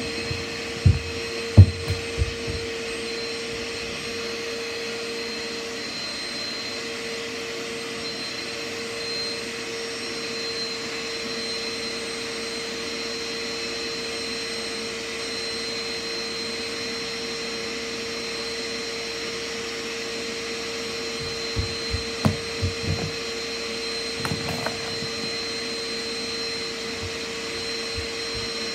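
Vacuum cleaner running steadily, a constant motor hum with a thin high whine over it. A few dull thumps come near the start and again about three-quarters of the way through.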